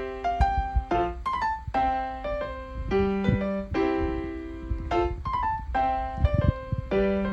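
Background music: a light melody of clear single notes on a keyboard instrument, the phrase repeating about every four seconds.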